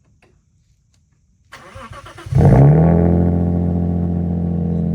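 Lexus IS200's 1G-FE inline-six on a cold start through a straight-pipe exhaust: the starter cranks briefly from about a second and a half in, the engine catches just after two seconds with a loud flare, then settles into a steady idle.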